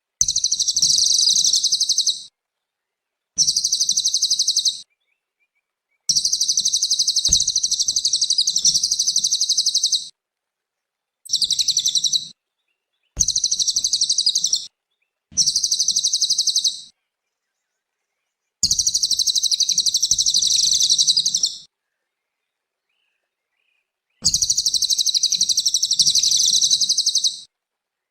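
Cililin songbird singing a rapid, high-pitched chattering trill in eight bursts of one to four seconds, with dead-silent gaps between. This is energetic 'gacor' song of the kind used as a masteran to tutor caged songbirds.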